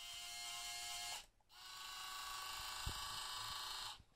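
Tamiya remote-control tank's small electric motors and gearboxes whining steadily. They run for about a second, stop briefly, then run again for about two and a half seconds before cutting off.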